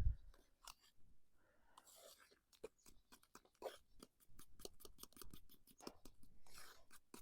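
Faint scraping and clicking of a utensil stirring freshly made mashed potatoes in a pot, irregular at first, then a quicker run of strokes about four seconds in.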